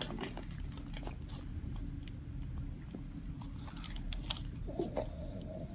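Hands massaging and kneading the skin over a trapezius muscle: scattered soft clicks and crackles of rubbing skin and fabric over a steady low room hum.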